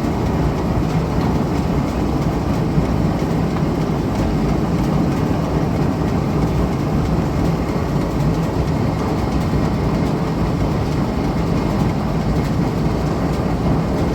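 Steady mechanical running of the drive of an antique Champion upright leather sewing machine, powered by a gas-engine-driven line shaft: an even, continuous din with no pauses.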